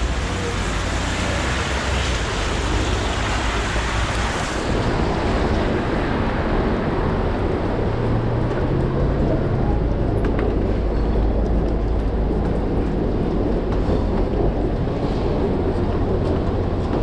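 City road traffic running on a wet street, a steady low rumble. A hiss over it reaches high up, then drops away about four and a half seconds in.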